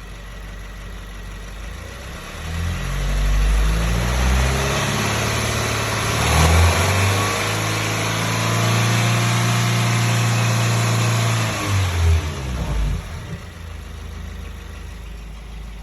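Subaru WRX's turbocharged flat-four engine revved up from idle, held at raised revs for several seconds, then let drop back to idle. It is being run to reproduce a weird noise.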